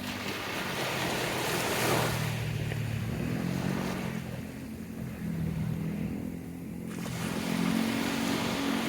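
Surf washing in at the sea's edge, swelling about two seconds in and again near the end, over a steady low engine hum.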